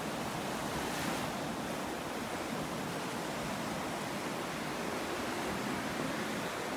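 Small waves breaking and washing up a sandy shore: a steady rush of surf.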